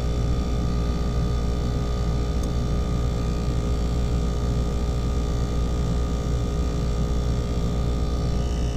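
ClimateMaster geothermal heat pump running in heating, a steady mechanical hum with several steady tones.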